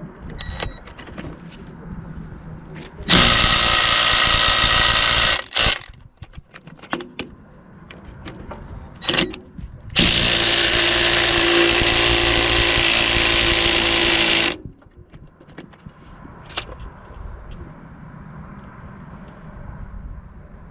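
Ryobi P263 brushed cordless 3/8-inch impact wrench running in two bursts, about two seconds and then about four and a half seconds, with scattered clicks and knocks between them.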